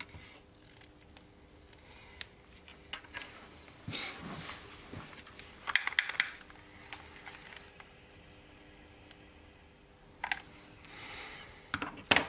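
Scattered small clicks and short rustles from handling thin wires and small parts such as heat-shrink sleeving, over a faint steady hum.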